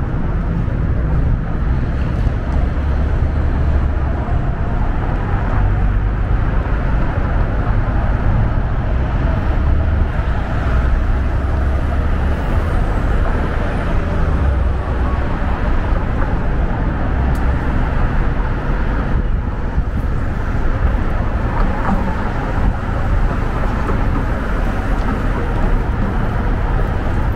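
Steady city street traffic: cars running past in a continuous wash of engine and tyre noise with a constant low rumble.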